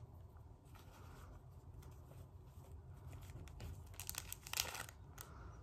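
A small pouch being handled and opened by hand to take out the item inside: faint rustling, with a quick cluster of louder rustles about four to five seconds in.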